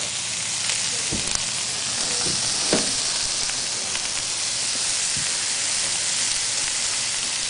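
Sausage frying: a steady sizzle with a few small pops in the first three seconds.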